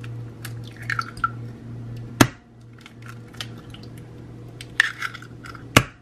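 Raw eggs being cracked into a glass mixing bowl. There are two sharp cracks of eggshell, about two seconds in and near the end, with crackling as the shells are pulled apart and wet drips as the eggs drop into the bowl.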